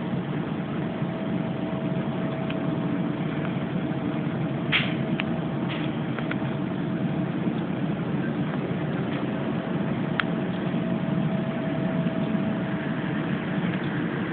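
Steady low droning rumble with a thin held tone above it, unchanging in level, and a few faint clicks, the clearest about five and ten seconds in. This is the night-time 'strange sound' whose source is unknown.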